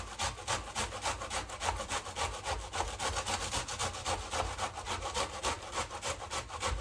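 Onion being grated by hand on the fine side of a metal box grater: quick, even rasping strokes.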